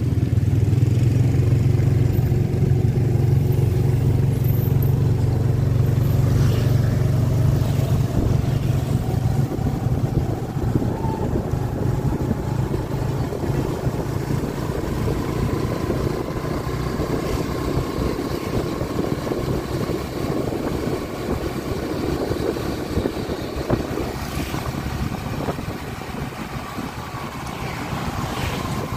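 Motorcycle riding along a road, heard from the back seat: engine running under heavy wind noise on the microphone, with an engine note that rises gradually in the first several seconds as it speeds up.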